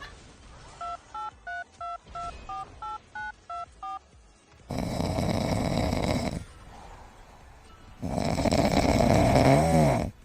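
Phone keypad tones: about ten short two-note beeps dialed in quick succession. Then two long, loud snores, a couple of seconds apart.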